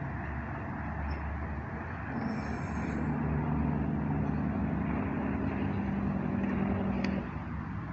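A motor vehicle's engine humming steadily over a constant outdoor background noise, coming in about two seconds in and dropping away abruptly near the end.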